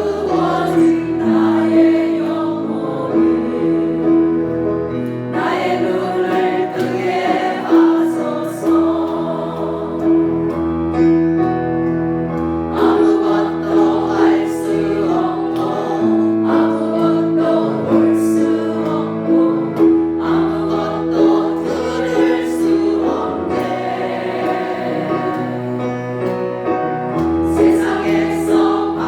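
Gospel praise song: a choir singing over sustained held chords.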